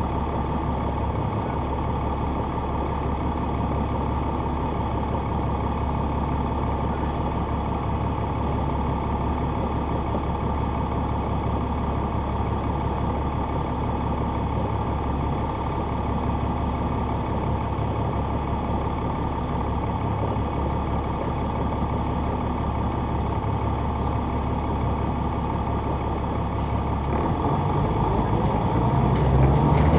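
Inside a Neoplan AN459 articulated transit bus, heard from the rear seats: its Caterpillar C9 ACERT diesel engine runs steadily. Near the end the engine climbs in pitch and loudness.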